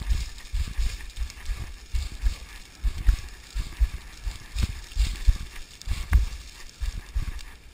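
Running footfalls plunging down loose scree: thuds about two to three a second, with the crunch of shifting rock.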